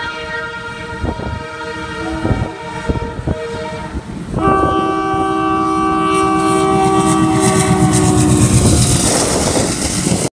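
Passenger train's locomotive sounding a multi-note horn as it approaches, then a louder long horn chord that starts sharply about four and a half seconds in. The rumble and clatter of wheels over rail joints build as the locomotive and coaches pass near the end.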